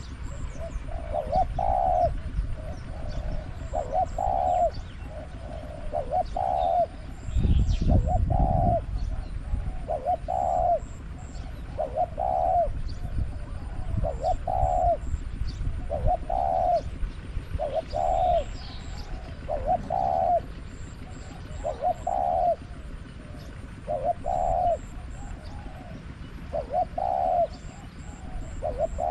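Spotted dove cooing over and over, one short low coo roughly every second or so. A gust of wind buffets the microphone with a low rumble about seven to nine seconds in.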